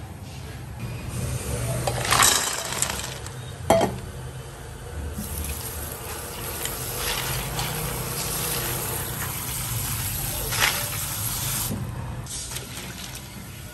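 Water poured from a jug over ice cubes in a stainless steel bowl, filling it into an ice-water bath, the pour running steadily for several seconds. Two loud sharp knocks in the first few seconds and a lighter one near the end.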